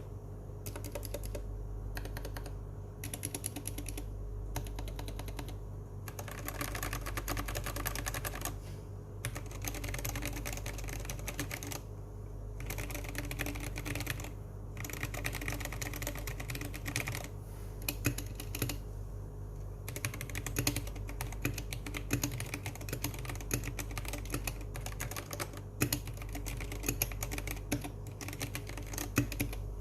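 Continuous typing on a Royal Kludge G68 mechanical keyboard fitted with XDA-profile keycaps: a dense, uneven stream of key clicks with brief pauses between runs.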